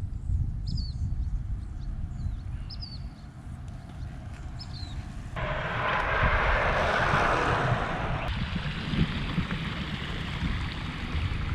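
Wind rumbling on the microphone, with a small bird giving short falling chirps about once a second in the first few seconds. About five seconds in, a loud steady hiss starts suddenly and carries on more faintly to the end.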